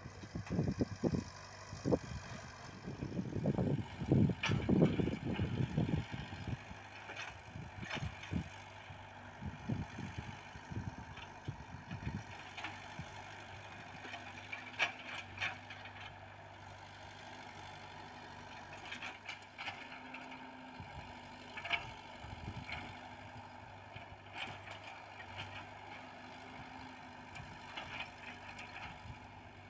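Komatsu PC78UU mini excavator's diesel engine running steadily while it digs, with loud knocks and clanks of the bucket working the soil, thickest in the first few seconds and scattered after that.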